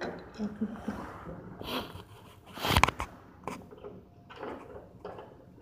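Rustling and knocking of things being handled and moved, with one louder clunk about three seconds in.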